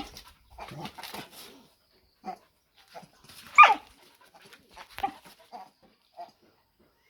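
A puppy yelping: a few short cries, the loudest about halfway through and falling in pitch.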